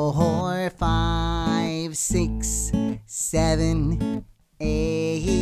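Children's counting song: strummed acoustic guitar with a voice counting out the numbers.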